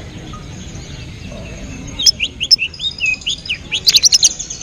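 Lovebird chirping: a run of short, sharp falling chirps begins about two seconds in and quickens into a rapid burst near the end, over a steady low background hum.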